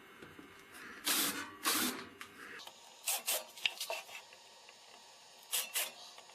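Hand-tool scraping strokes on wood: two longer strokes about a second in, then a run of shorter, quicker strokes.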